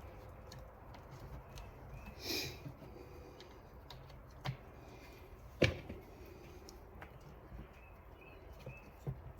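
Faint clicks and knocks of chainsaw parts being handled and fitted by hand, with a brief scrape about two seconds in and one sharp knock a little past halfway.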